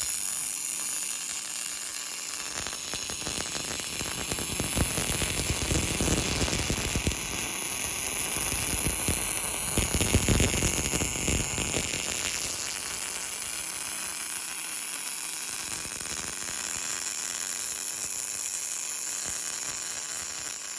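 Arc welding building up metal on a worn excavator part (weld surfacing): a steady frying crackle and hiss, a little louder around the middle.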